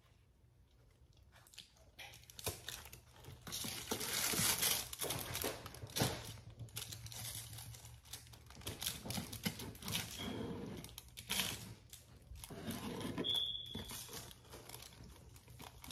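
A knife cutting and pulling the fat off a rack of raw ribs: irregular tearing and crinkling noises that begin about two seconds in, with a brief high squeak near the end.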